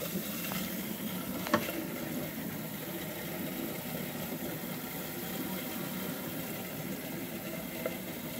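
Steady fizzing and churning of water as a pump-driven DIY venturi injects a stream of fine air bubbles into a glass aquarium. A sharp click sounds once about one and a half seconds in.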